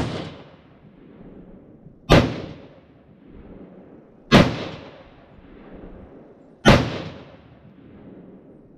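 Four rifle shots from an AR-style rifle fitted with a Mission First Tactical muzzle brake, fired at an even pace about every two and a quarter seconds, the first right at the start. Each crack trails off in a short echo under the range shelter's roof.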